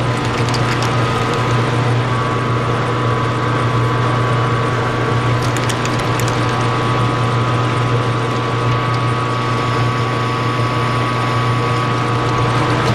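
12x36 import metal lathe running under power, its geared headstock giving a steady hum with a constant gear whine above it, while an insert tool takes a facing cut on a spinning steel ring. A few faint ticks come through about half a second in and again around six seconds in.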